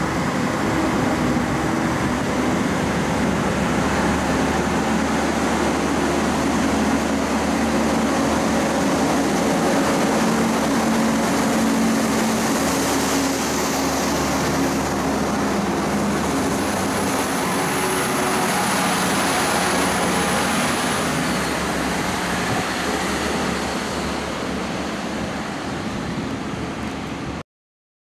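Class 641 single-car diesel railcar (Alstom Coradia A TER) moving past close by: a steady diesel engine drone with a low hum and rail running noise, and a faint high whine partway through. The sound cuts off abruptly near the end.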